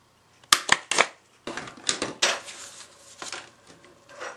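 Hole punch snapping through cardstock: a few sharp clicks about half a second in, followed by rustling of card and further lighter clicks.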